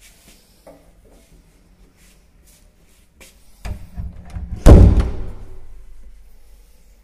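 A door pushed shut, a second of moving noise and then one loud slam about halfway through that rings away over a second or two.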